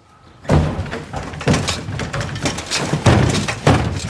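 A bicycle swung and bashed against a door frame and walls: a run of heavy thuds and bangs about once a second, over music.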